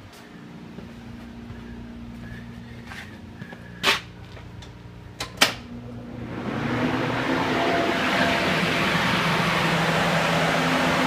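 Carpet-drying air mover running: a steady hum under a rush of air, which gets much louder about six seconds in. Two sharp knocks come a little before that.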